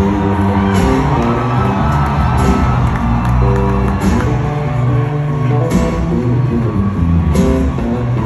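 Live band music played loud through a concert PA, with electric bass guitar playing and a cymbal hit about every second and a half. The crowd shouts and whoops over it.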